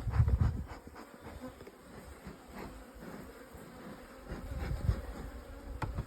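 Buzzing of a colony of native black honeybees (Apis mellifera mellifera) from an opened hive, a steady hum. Low rumbling buffets come just after the start and again about five seconds in.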